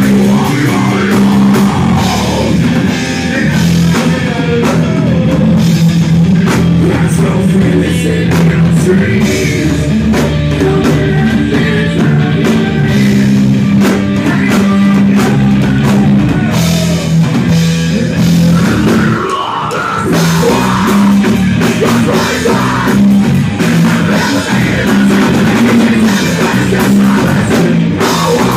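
A rock band playing loud and live: a drum kit, a distorted electric guitar, and a vocalist singing into a microphone, with a brief drop in the music about two-thirds of the way through.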